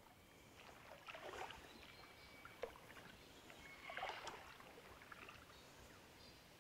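Quiet splashing and sloshing in shallow swamp water, in two short spells, about a second in and again around four seconds, with a single sharp click between them.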